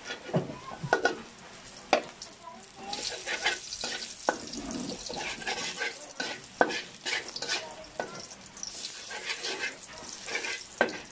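Garlic cloves sizzling in hot cooking oil in a wok, the sizzle growing louder about three seconds in. A metal spatula scrapes and clacks sharply against the pan now and then as it stirs the garlic.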